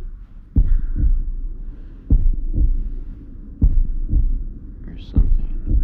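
A slow, deep heartbeat: paired lub-dub thuds about half a second apart, repeating roughly every one and a half seconds.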